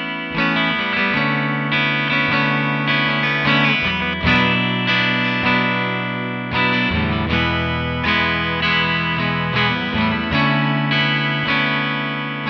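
Fender American Performer Stratocaster played with a clean tone through a Line 6 Floor POD Plus modelling a Fender Twin Reverb. Chords ring on and change every second or so.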